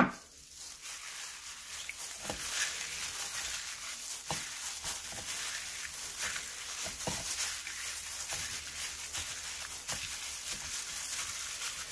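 Clear disposable plastic glove crinkling and rustling as a hand mixes and rubs seasoning into raw eel chunks on a plate, with a few soft knocks.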